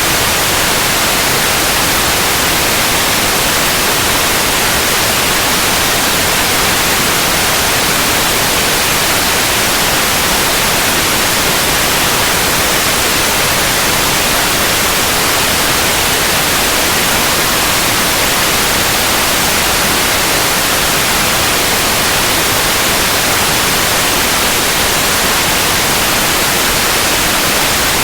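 Continuous white noise: a steady, even hiss without change, strongest in the high end.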